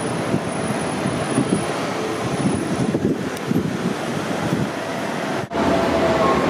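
Low-floor street tram passing close by, a steady rumble of wheels on rail and running gear. After a sudden break about five and a half seconds in, a second tram passes, louder, with a steady whine from its drive.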